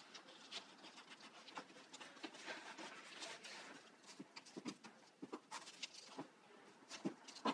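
Faint paper rustling with scattered light taps and scrapes as cut paper letters are handled and pressed down onto a paper collage.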